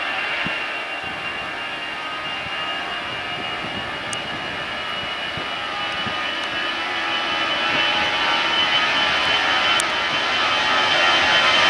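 Airbus A320-214's CFM56 turbofan engines running as the airliner lands: a steady jet whine with a high tone, growing louder over the second half.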